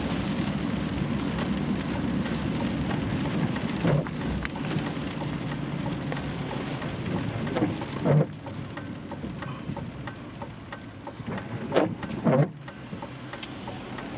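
Steady rain falling, with a few short dull knocks about four seconds in, around eight seconds, and twice near twelve seconds.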